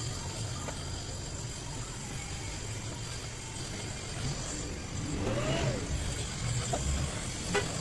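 Gas welding torch flame hissing steadily as it heats an aluminium clothes-iron soleplate and melts in filler rod, over a low engine-like rumble.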